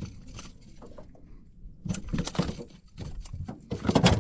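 Irregular knocks and scuffs, with a cluster of them about two seconds in and the loudest near the end.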